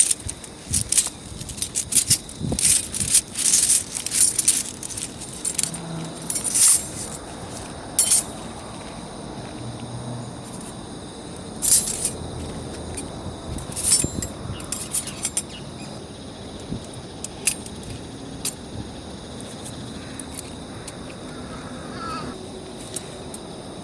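Metal bars of a flat-bar mesh fire stand clinking and rattling as the stand is put together. The clinks come in quick clusters for the first several seconds, then more sparsely.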